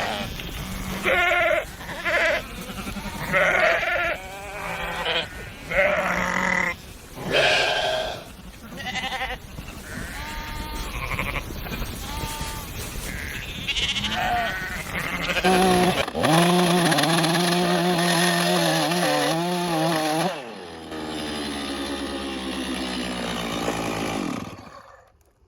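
Sheep bleating over and over in short, wavering calls. About two-thirds of the way through comes one long, quavering bleat that lasts several seconds. It trails off into a steady hiss near the end.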